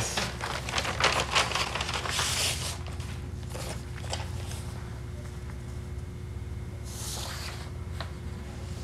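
Paper rustling and scraping as an envelope is opened and its contents handled: clustered crinkles and scrapes in the first few seconds, a few more later, over a faint steady hum.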